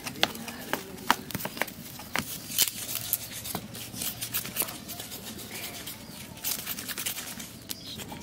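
Scraping the charred hair off a fire-singed goat head with a stick and a knife: a run of irregular short scratches and sharp clicks.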